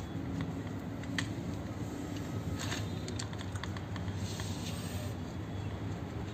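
Small metallic clicks and scrapes of a screwdriver turning screws into a car power window regulator's motor mount, with a few sharp clicks about a second and three seconds in, over a steady low hum.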